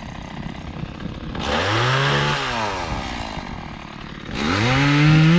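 Chainsaw throttled up twice, its pitch rising to a high whine and dropping back to idle between, the second run-up still going at the end.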